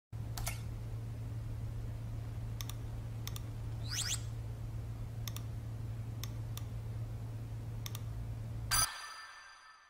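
Laptop keyboard keystrokes: a handful of separate sharp clicks over a steady low hum. Near the end a sudden ringing hit sounds and fades away.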